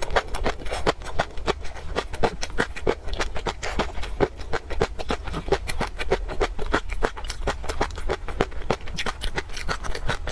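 Close-miked chewing of crunchy peanut sauce and black fish roe: a dense, fast run of crisp crunches and pops, several a second, over a steady low hum.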